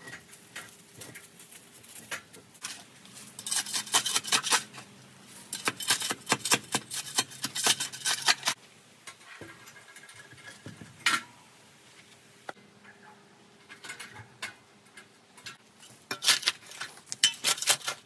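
Hand tools and metal hardware clicking and clinking in several dense bursts, the loudest a few seconds in, in the middle and near the end.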